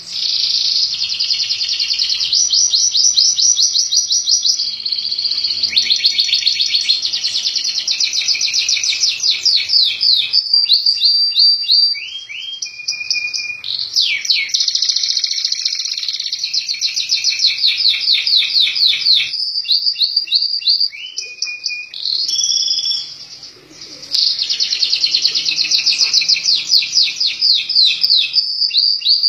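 Domestic canary singing a clear, loud 'gecor' song: long rolls of fast repeated notes, almost unbroken, with short pauses about twelve and twenty-three seconds in.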